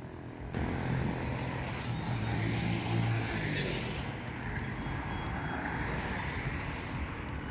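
Passing road traffic: a steady wash of vehicle engine and tyre noise with a low engine hum, rising suddenly about half a second in.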